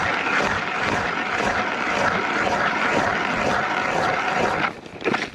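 Ice auger driven by a cordless drill, boring through river ice with a steady whine and grinding; it stops abruptly near the end, followed by a few short knocks.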